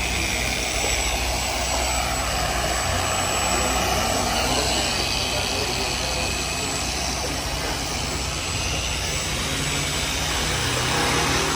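Machine sander running steadily against a car's painted panel during wet sanding.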